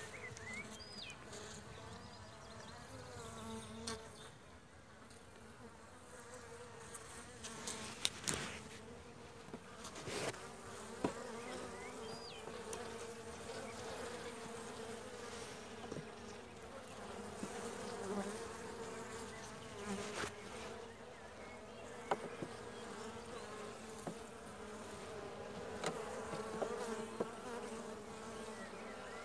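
Honey bees buzzing steadily around an opened hive, with a few short sharp knocks scattered through as the wooden frames are handled.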